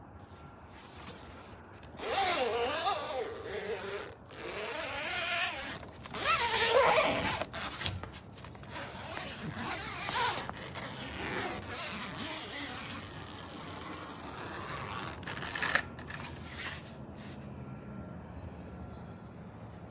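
Zipper of a mesh cat screen door being run along its track in several rasping strokes, each a second or two long, with the mesh rustling; it stops a few seconds before the end.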